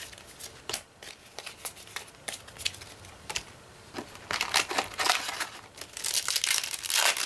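Foil wrapper of a Yu-Gi-Oh booster pack crinkling as it is handled and torn open, starting about four seconds in and getting louder near the end. Before that, a few light clicks of trading cards being handled.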